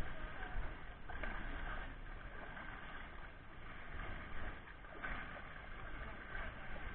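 Water splashing and sloshing as people wade and throw buckets of water over bathing elephants, with faint voices in the background.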